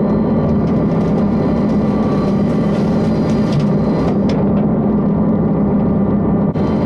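Kubota tractor's diesel engine running steadily under load while driving a brush hog rotary cutter through thick brush, with scattered sharp cracks on top.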